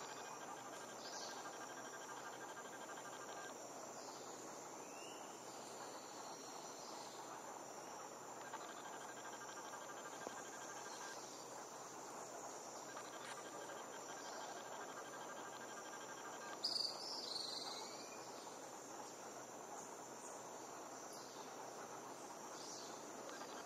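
Evening rainforest insect chorus: a steady high-pitched trilling, with a lower trill that starts and stops several times. A brief, louder chirping call breaks in about two-thirds of the way through.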